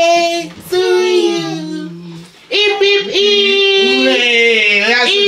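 A woman and a small child singing together, with a lower voice beneath them, in long held notes; the singing breaks off briefly a little after two seconds, then starts again.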